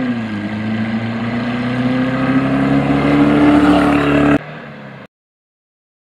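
Air-cooled flat-four engine of a classic Volkswagen Beetle accelerating, its note climbing slowly and steadily. The sound cuts off suddenly a little over four seconds in.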